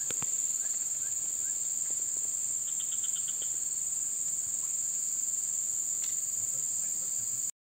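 Insects buzzing in a steady, high-pitched chorus, with a few faint short chirps about a second in and a quick run of about seven faint pips around three seconds in; the sound cuts off suddenly near the end.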